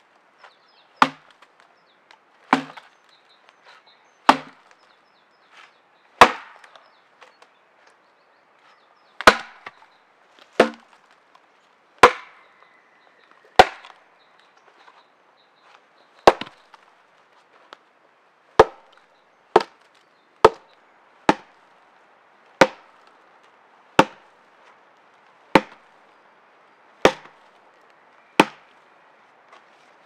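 Wood being chopped by hand: about nineteen sharp chopping strikes, mostly one every second to second and a half, with two short pauses.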